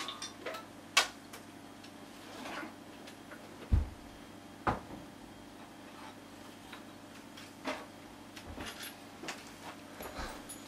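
Scattered knocks and clicks, with a few low thumps, as an electric guitar is put down and the player gets up from his chair, over a faint steady hum.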